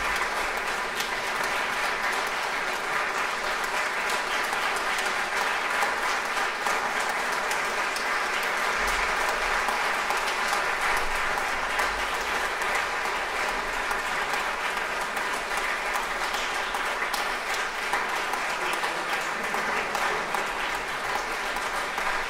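Audience applauding steadily: the even, dense patter of many hands clapping, holding at one level throughout.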